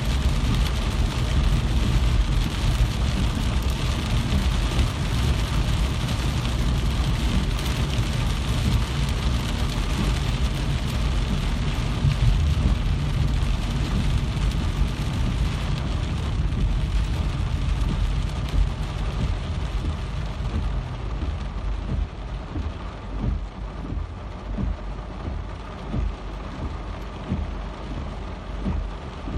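Heavy rain falling steadily, a dense hiss with a deep low rumble underneath. In the last third it eases a little, and single heavier drops or low thuds stand out.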